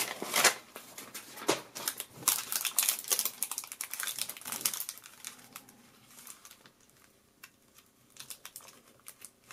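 Clear plastic film wrapped around a pair of night vision goggles crinkling as the goggles are handled and turned over, with the paper instruction sheet rustling at the start. The crinkles are thick at first, then thin out and grow fainter about halfway through.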